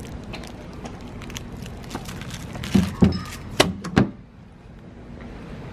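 Plastic food-waste bin and its hinged lid knocking and clattering: four sharp knocks close together about three to four seconds in, after some light rustling and clicking.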